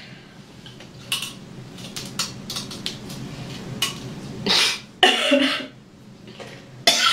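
A woman vomiting into a toilet bowl: scattered small sharp clicks, then loud retches about four and a half and five seconds in, and another near the end.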